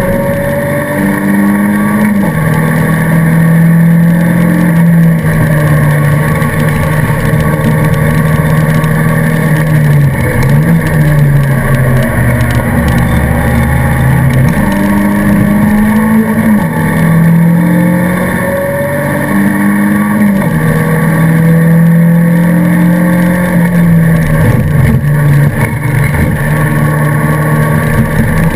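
Alfa Romeo 155 race car's engine heard from inside the cockpit, running hard around a circuit. The engine note holds for a few seconds at a time, then steps or dips with gear changes and lifts for corners, over steady road and wind noise.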